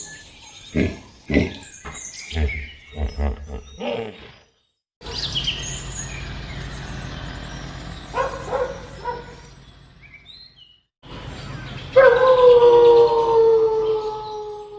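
Animal calls in separate clips cut one after another: a run of short repeated calls, then a quieter stretch with a few chirps, then one long call that slowly falls in pitch near the end.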